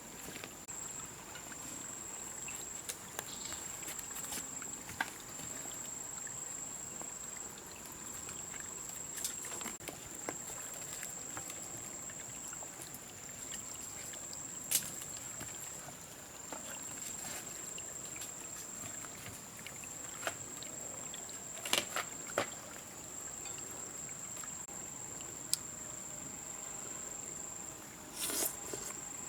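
Insects droning steadily at one high pitch, with scattered sharp clicks and knocks, the loudest a cluster near the end.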